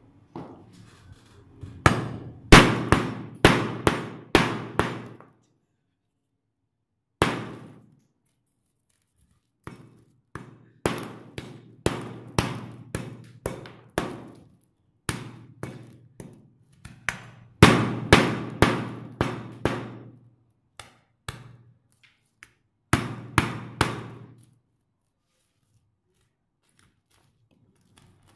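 Claw hammer striking a block of ice, cracking and chipping it apart: bursts of quick, sharp blows with pauses between them, some of them loud.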